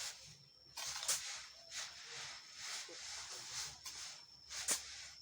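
Sand being shaken through a sand sifter's sieve: a gritty, hissing swish that swells and fades about once a second, with a few sharp clicks, the loudest about a second in and near the end.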